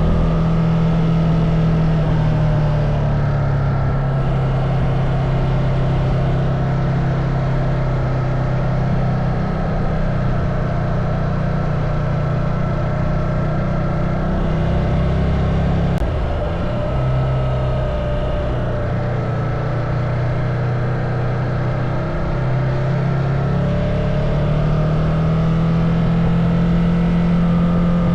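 Ducati Multistrada motorcycle engine running steadily, its note stepping between a lower and a higher pitch several times as the revs change.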